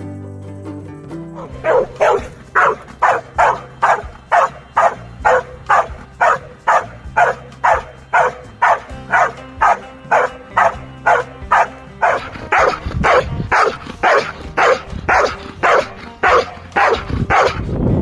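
A Belgian Malinois barking steadily and rhythmically at a helper hidden in a blind, about two barks a second, starting about a second and a half in: the bark-and-hold of IGP protection work. Background music plays underneath.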